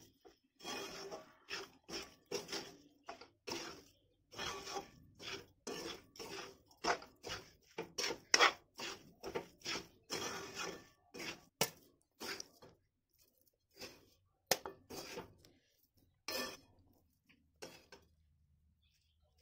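A metal spatula scraping and stirring a grated coconut and sugar mixture in a metal wok, in quick strokes about two a second. The strokes thin out after about twelve seconds and stop near the end.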